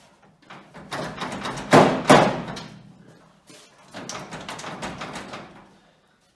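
Two heavy knocks in quick succession, about two seconds in, amid rattling and scraping, with another stretch of rattling and scraping about four seconds in.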